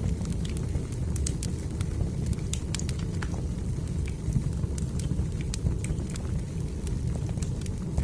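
Wood fire burning in a fireplace: a steady low rumble with frequent irregular crackles and pops from the burning logs.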